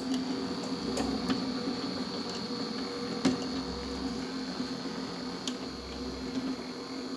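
Toroidal transformer winding machine running steadily as it lays copper wire onto the core: a steady hum with a thin high whine and a few light clicks.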